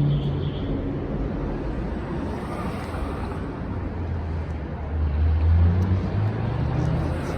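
Steady road-vehicle rumble mixed with wind noise on the microphone; a low hum swells about five seconds in and eases off again.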